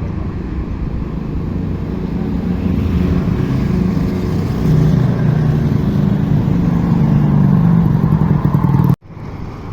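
A motor vehicle's engine running and growing steadily louder, then cut off abruptly about nine seconds in, after which a quieter engine noise carries on.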